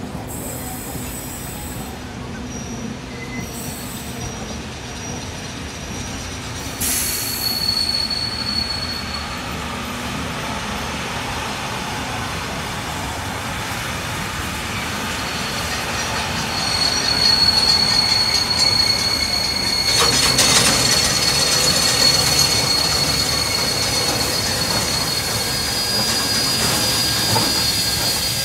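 A heritage steam train's carriages, and then its locomotive, rolling slowly past with a rumble, and a high-pitched steel wheel squeal on the rails. The squeal comes in about seven seconds in and returns steadily through the second half as the sound grows louder.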